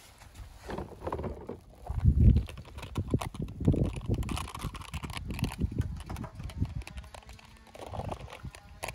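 A hand sloshing and squelching through soapy water and thick foam in a plastic tub, with irregular splashes and small knocks as it gropes for and lifts out a toy car. The loudest slosh comes about two seconds in.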